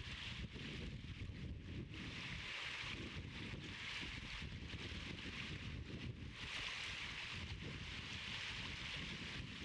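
Wind on the microphone: a steady, choppy low rumble, with a hiss that swells and fades every couple of seconds.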